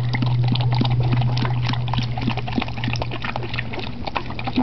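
Ibizan Hound dam licking and chewing at her newborn puppy and the placenta: a quick, irregular string of wet smacks and clicks.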